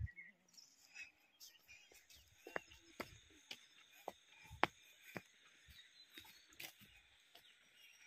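Faint outdoor ambience: a steady insect drone under a scattering of short, irregular clicks and knocks, the loudest about four and a half seconds in.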